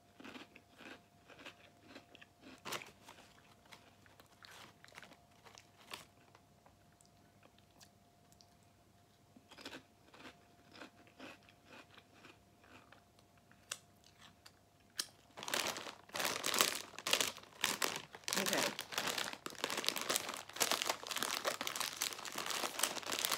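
Crisp Popchips being chewed with short crunches every second or so. About fifteen seconds in, a foil snack bag is handled and torn open, with loud, continuous crinkling.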